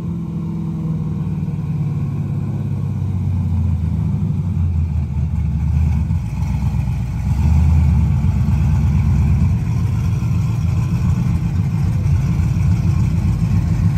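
Chevrolet Silverado SS truck's 6.0-litre V8 running at idle with a deep, uneven low note, louder from about seven seconds in.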